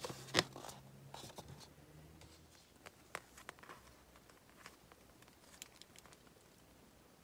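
Heavy scrapbooking cardstock handled by hand: one crisp paper snap as a sheet is flipped about half a second in, then scattered light rustles and taps of paper that die away.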